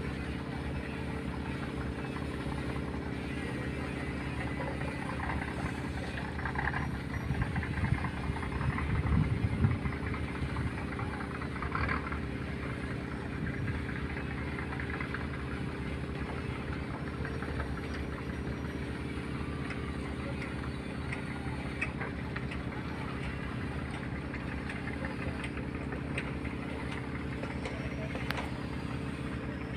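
Boat engine running steadily at a low, even drone, with a brief louder swell about eight to ten seconds in.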